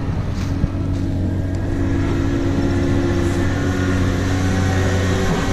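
Tractor diesel engine running steadily, its note growing a little stronger about two seconds in.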